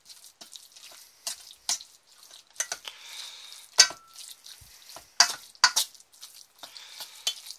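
A spoon stirring and scraping through a thick mixture of cooked vegetables, lentils, pearl barley and porridge oats in a pot, with irregular sharp scrapes and knocks against the pot.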